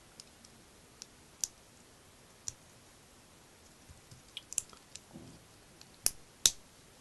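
Small plastic LEGO pieces clicking as they are handled and pressed together: scattered sharp clicks, the two loudest close together near the end.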